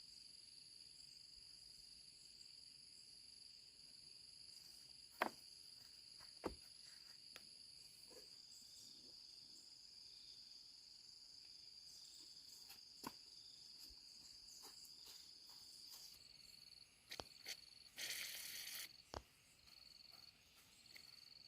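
Insects chirring in a steady, high-pitched drone, with a few sharp clicks. Near the end the chirring breaks into short pulses and there is a brief rasping burst.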